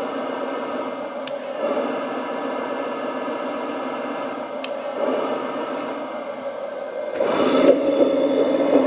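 Simulated diesel engine sound from a 1/14 scale D575 bulldozer's sound module, a steady drone played through a small speaker, getting louder and fuller about seven seconds in. A few faint clicks over it.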